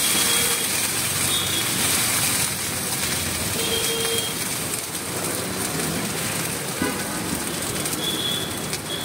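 Water sizzling on a hot dosa griddle, a steady hiss that is strongest in the first couple of seconds and then settles slightly.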